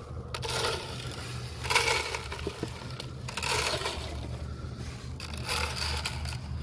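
Rustling and crunching in four short, irregular bursts as a corn and goat-feed mix is poured out into plastic feed troughs.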